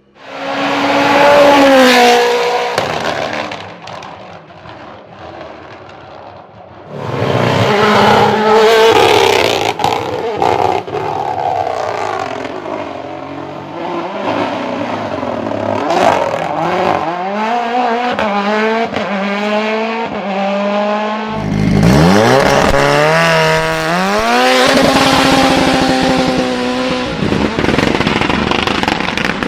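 High-performance sports car engines revving and accelerating hard. The first rev's pitch falls away over a couple of seconds. About seven seconds in another loud run starts, its pitch rising and dropping through gear changes. About twenty-one seconds in the pitch climbs again from low and then holds high.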